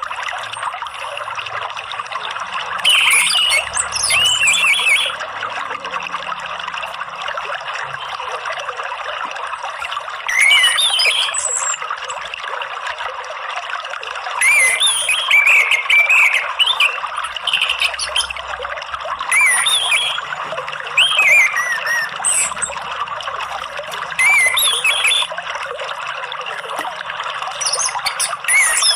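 Orange-headed thrush singing in short bouts of quick, warbling whistled phrases every few seconds, over the steady sound of trickling water.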